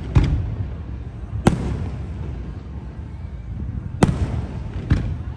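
Aerial fireworks shells bursting: four sharp bangs, two close together near the start and two near the end, over a steady low rumble.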